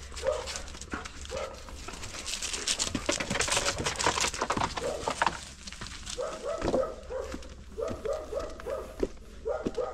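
Excited dogs yipping and whining in short calls, a few at first and then a quick run of about a dozen in the second half.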